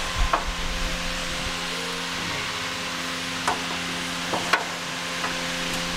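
Hand tools knocking and clinking on metal while the old trailing arms are unbolted from under the vehicle: a handful of sharp knocks, the loudest about four and a half seconds in, over a steady hiss and hum.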